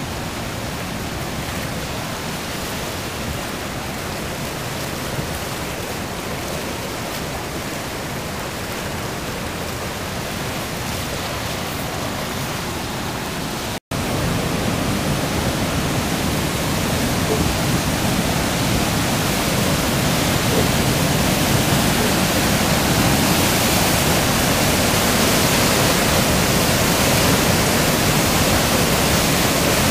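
Swollen floodwater rushing past in a steady, even wash of water noise. After a brief break about 14 seconds in it is louder, floodwater pouring over a hydro dam spillway, and it grows louder still over the next several seconds.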